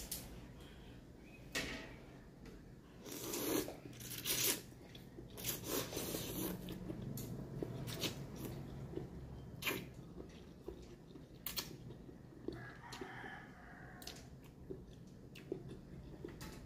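A person slurping up long noodles and chewing them close to the microphone, in short noisy sucks with sharp little clicks between them.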